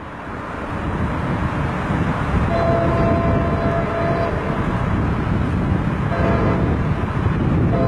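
Amtrak Auto Train diesel locomotive approaching, a low rumble growing louder over the first couple of seconds. Its multi-tone horn sounds a long blast, then a short one, and another begins near the end.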